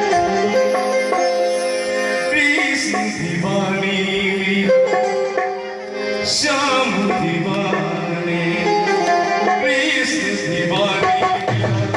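Live devotional music: harmoniums playing a held, chord-rich melody over a steady hand-drum rhythm.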